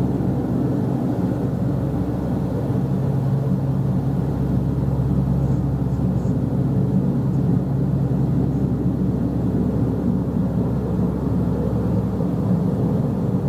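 Steady low droning hum from the sky, a few low tones held together at an even level, of the kind reported as 'trumpets in the sky'; the person recording likens it to a light aircraft.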